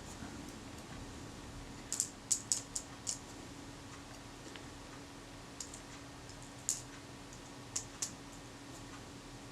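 Small metal shutter parts and tools clicking lightly against a work surface as the parts are laid out: a quick cluster of clicks about two seconds in, a few scattered clicks later, over a faint steady hum.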